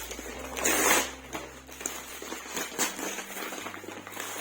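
Rustling and knocking of packaged goods being handled and pulled out of a box: a louder rustle about a second in, then a few small clicks and rustles.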